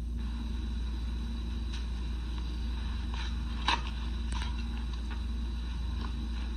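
Steady low hum with faint crackle from an old film soundtrack, broken by a scatter of short clicks, one sharper than the rest about halfway through.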